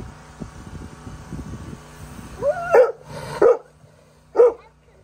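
Alaskan malamute barking: a rising, whine-like note runs into a deep woof about two and a half seconds in, followed by two more woofs, the last a second later. Low scuffling comes before the barks.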